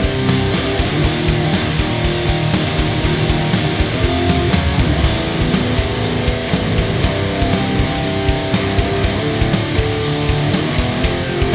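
Industrial metal song: loud electric guitars over dense, rapid drum hits, with no vocals.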